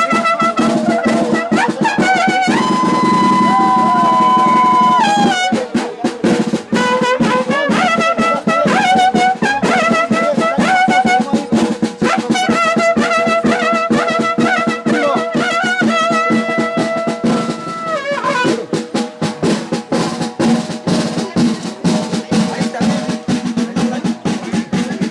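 Brass band playing a festive tune, trumpets holding long notes over a steady drum beat. After about 18 seconds the horns fall back and the drums carry on.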